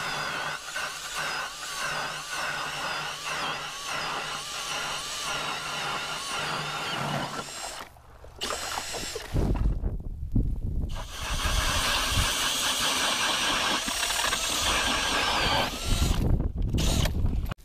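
Milwaukee Fuel brushless cordless drill spinning an ice auger through lake ice, in bursts with two short pauses. The first stretch is a steady motor whine. After the pause near the middle, the run is louder and rumbles as the auger bites into the ice.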